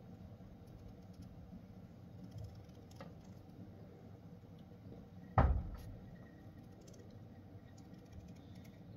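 Quiet room noise with one sharp knock about five seconds in, preceded by a faint click.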